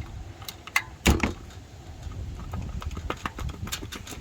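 A few sharp clicks and knocks, the loudest about a second in, from an oil filter cap wrench stuck on the filter housing being wiggled and worked loose by hand.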